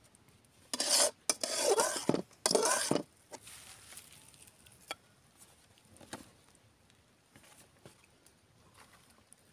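Metal ladle scraping and stirring thick spice masala in a metal kadai as it cooks: three loud scrapes in the first three seconds, then quieter stirring with a few light clicks.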